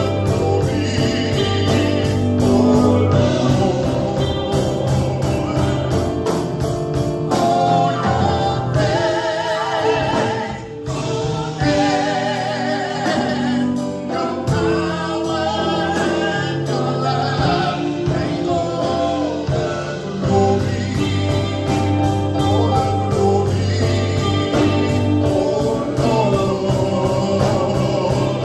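Live gospel praise-and-worship music: a band with singers, sung melody lines over sustained bass and keyboard notes and a steady beat.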